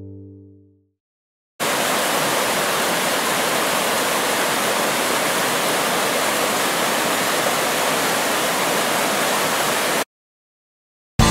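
A steady, even rushing noise that cuts in and cuts off abruptly, after the tail of a fading rock-guitar music track.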